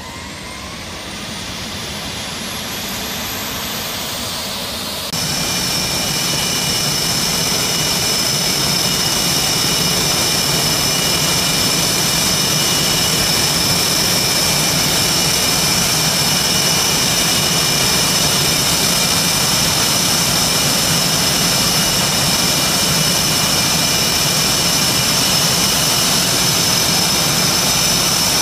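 F/A-18 Hornet jet engines with a rising whine at first, then running steadily at idle with a high-pitched whine over a rushing roar. The sound jumps louder about five seconds in.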